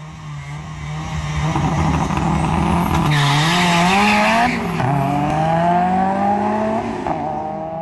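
Car engine accelerating hard, its pitch climbing steadily and dropping back at each of about three upshifts. A hissing rush of noise rides over it for a second or so after the first shift.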